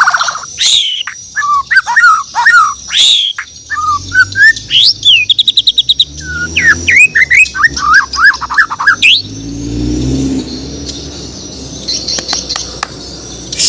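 White-rumped shama (Borneo murai batu) singing a fast, varied song of whistled, up-and-down notes with a quick run of repeated notes in the middle; the song stops about nine seconds in, leaving a low rumble and a few faint clicks.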